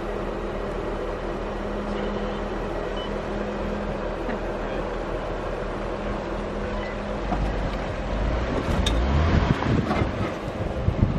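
Jeep Wrangler engines idling with a steady hum, then a louder low rumble that builds from about seven seconds in as the tow vehicle takes up the strap and drags a stuck Jeep through snow.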